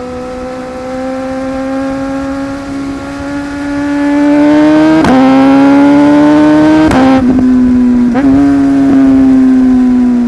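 Inline-four superbike engine accelerating hard, its pitch climbing steadily and growing much louder about halfway through, then broken by a few quick gear changes, each a short crack with a dip in pitch.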